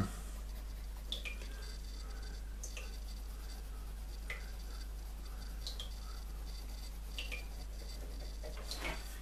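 Blunt graphite pencil rubbing over smooth drawing paper in small oval strokes, heard as faint, scattered scratchy swishes over a steady low hum.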